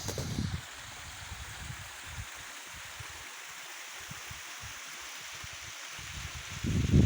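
Waterfall's steady rush of falling water. A loud, irregular low rumble comes in over it from about six and a half seconds in.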